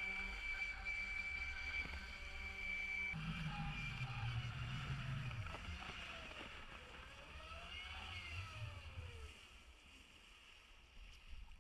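Onean Carver electric jetboard underway: the motor's steady whine over rushing water and spray along the hull. The whine holds one pitch at first, then rises and falls several times from about three seconds in as the board carves, and the sound fades near the end.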